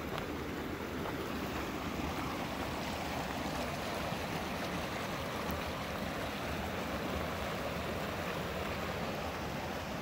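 Fast-flowing creek rushing over rocks and a small cascade: a steady rush of water.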